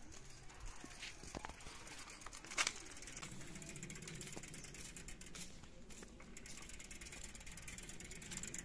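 Bicycle freewheel ticking in a fast run of light clicks as the bicycle is pushed along on foot, with one louder knock about two and a half seconds in.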